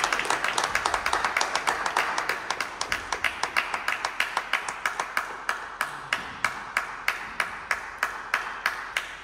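Crowd clapping in a steady rhythm, about four or five claps a second, while cheering fades out over the first few seconds.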